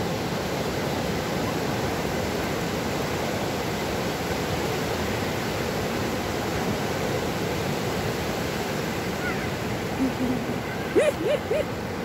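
Ocean surf breaking and washing up a sandy beach: a steady rushing noise.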